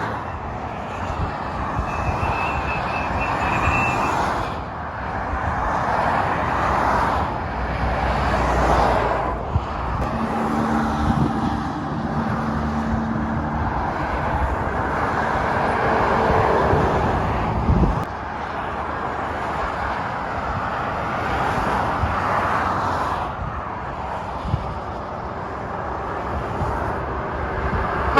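Motorway traffic passing at speed: lorries and cars rushing by one after another, the tyre and engine noise swelling and fading with each pass. In the middle a heavy engine drone runs for several seconds, then cuts off suddenly.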